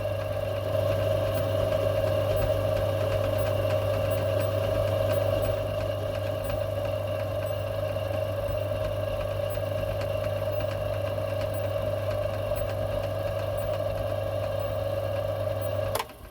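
Metalworking lathe running steadily, turning an oversized steel bar with the tool cutting only part of each turn because the bar is not yet round. The motor hum stops abruptly near the end.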